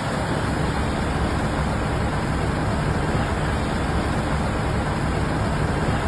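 Steady rushing noise with a strong low rumble, unbroken and even throughout.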